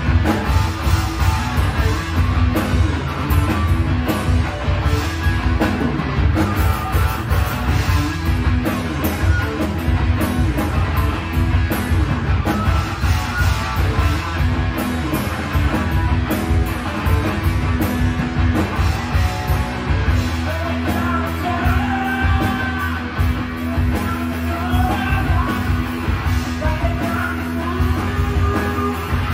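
Live heavy-rock band playing a song on amplified electric guitar, electric bass guitar and drum kit, with sung vocals.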